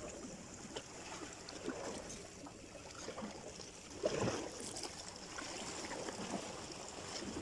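Small sea waves lapping gently against shoreline rocks, with a slightly louder slap about four seconds in.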